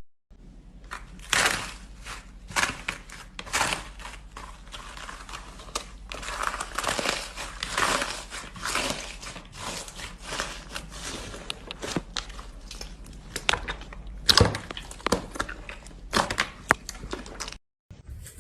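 Slime being pressed and squished by hand, giving an irregular run of crackles, small pops and squelches, cut off abruptly twice.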